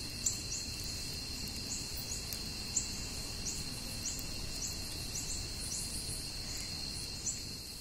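Night insects: a steady high cricket-like trill with short, higher chirps about twice a second. Under it sits a low, even rumble from a wood campfire burning, with a couple of small pops.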